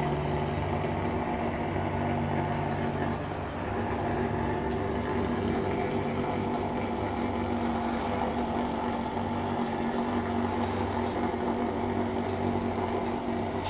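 Steady mechanical hum made of several held tones, like an engine or machinery running. Its lowest tone shifts about three and a half seconds in.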